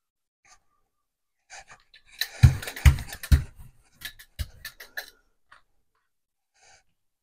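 A hand brayer is rolled back and forth through wet acrylic paint on a gel printing plate, making a tacky crackling hiss with four low thumps. It starts about a second and a half in and stops after about five seconds.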